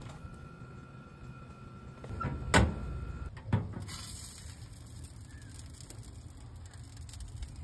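Metal smoker door swung shut with a loud clank about two and a half seconds in, followed by a smaller knock about a second later, over a steady low hum.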